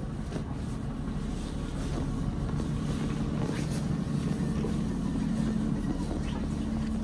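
Diesel passenger train running, heard from inside the carriage: a steady low rumble with an engine hum that grows a little stronger a couple of seconds in.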